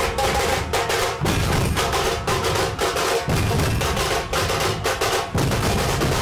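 Indian-style music driven by fast, dense drumming, with a deep bass beat that comes and goes.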